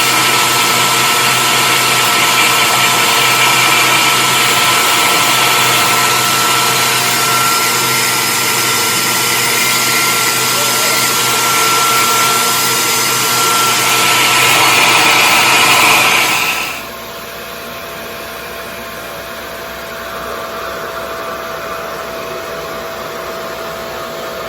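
Revair reverse-air (suction) hair dryer running loudly and steadily, a whooshing rush with a thin whine through it. About two-thirds of the way in it drops to a quieter, lower-pitched hum.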